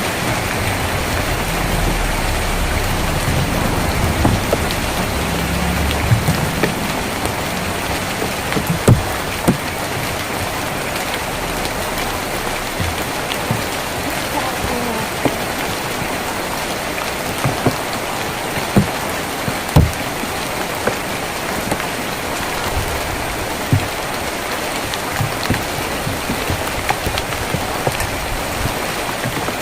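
Steady rain on a tin roof, an even hiss with scattered louder drops striking the metal. A low rumble sits under it for the first several seconds.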